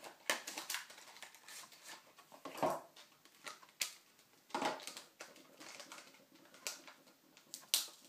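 New SanDisk SSD being unpacked from its cardboard box and stiff clear plastic packaging: irregular clicks and crinkling of plastic, with a few louder crackles about two and a half seconds in, around four and a half seconds and near the end.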